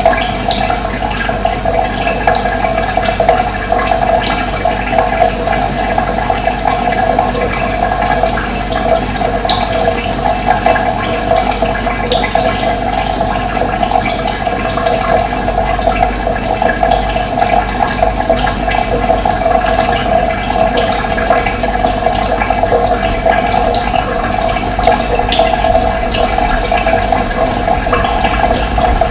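Running water rushing steadily and evenly, with no breaks.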